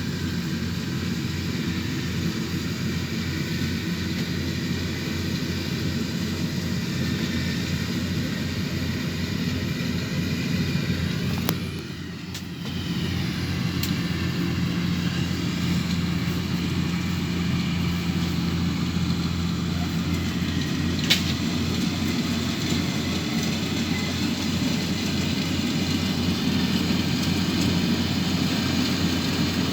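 Rice combine harvester's engine running steadily as it harvests paddy rice. The level dips briefly about twelve seconds in, and there is a single sharp click around twenty-one seconds.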